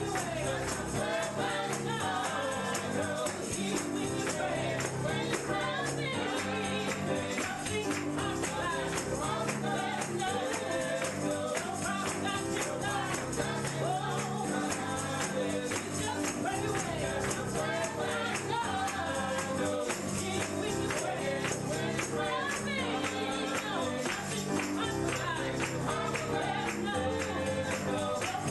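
Gospel music with voices singing over a steadily shaken tambourine.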